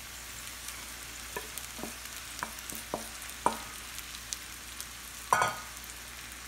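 Potatoes frying in butter in a pan, a steady sizzle, while a wooden spatula scrapes and taps soaked sabudana (tapioca pearls) out of a steel bowl into the pan: a run of light taps, then a louder clatter with a brief metallic ring about five seconds in.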